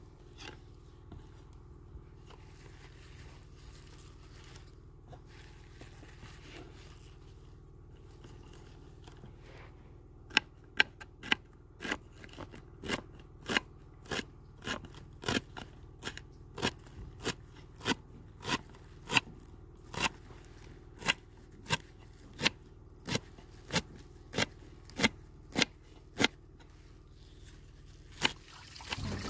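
A kitchen knife chopping fresh leafy greens and their crisp stems on a wooden cutting board. After a quiet stretch, a steady run of sharp chops begins about ten seconds in, nearly two a second.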